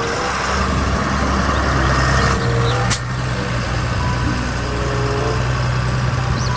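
A Fendt tractor's diesel engine running steadily as the tractor drives and turns on pavement, a little louder about two seconds in. A single sharp click comes about three seconds in, and a bird chirps faintly near the end.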